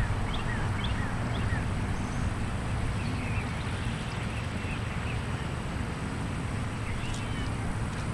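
Honey bee swarm buzzing as a steady low hum, with small birds giving short, high chirps throughout.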